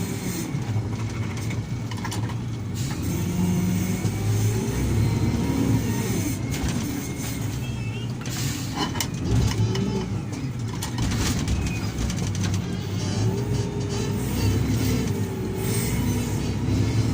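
Diesel engine of heavy earthmoving machinery working under load, its speed rising and falling, with a few knocks in the middle.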